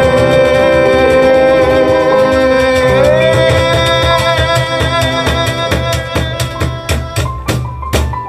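Live jazz trio of acoustic guitar, piano and cajón playing the closing bars of a song: a long held sung note that steps up in pitch about three seconds in, over strummed guitar and cajón. The strokes come faster and faster, ending on a final accented hit near the end.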